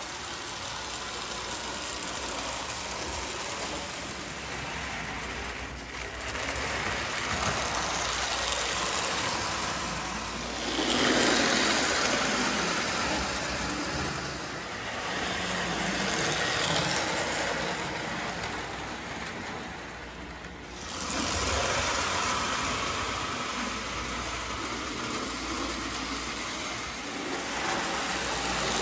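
Marx 333 die-cast 4-6-2 Pacific toy steam locomotive running on three-rail track with its passenger cars. The motor runs and the wheels clatter steadily on the rails, swelling and fading as the train comes close and moves away. It is loudest about eleven seconds in.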